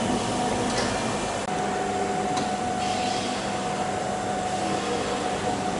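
Steady hum of workshop air-handling or fan noise, with a few faint clicks.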